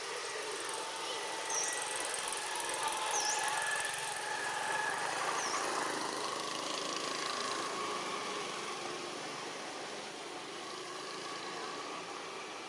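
Steady outdoor background hiss with faint drawn-out tones underneath, and three short high chirps a second or two apart in the first half.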